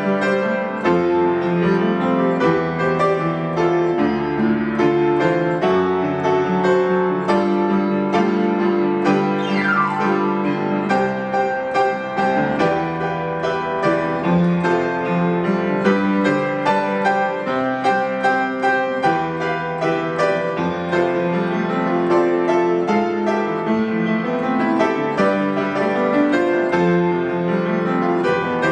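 Upright acoustic piano played continuously with both hands: a busy piece of many quick notes and chords without a break.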